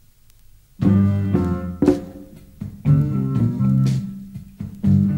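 A blues band on a live recording begins playing about a second in, with sustained chords over a bass line and sharp drum hits.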